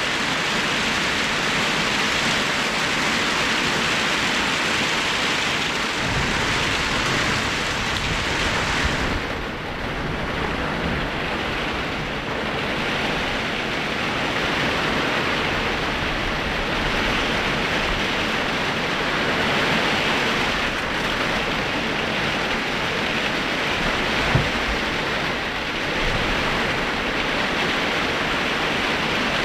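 Heavy rain pouring down steadily during a summer thunderstorm, a dense hiss of drops on the ground, with a brief low thump about two-thirds of the way through.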